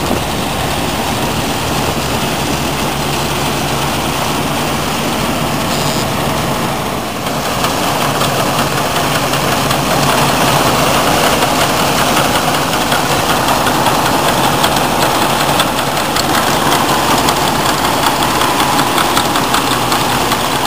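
Combine harvester engine and threshing gear running steadily while harvesting grain. About seven seconds in, the sound switches to a closer, slightly louder vintage Massey Ferguson combine running in the crop.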